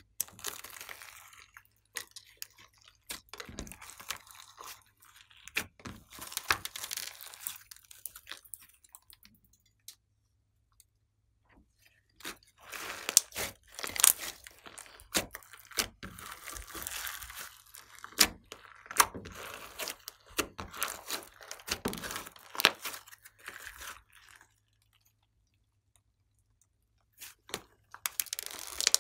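Glossy slime with glitter and beads mixed in, squished, stretched and pressed by hand: irregular bursts of wet clicks, crackles and pops. It goes quiet for a couple of seconds about a third of the way in and again near the end.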